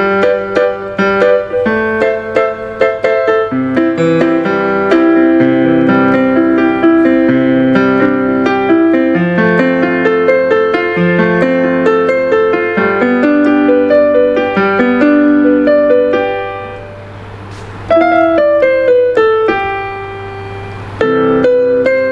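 Yamaha PSR-E373 portable keyboard played on its grand piano voice: a continuous two-handed passage of chords and melody. About three-quarters of the way through, the notes die away briefly before playing resumes.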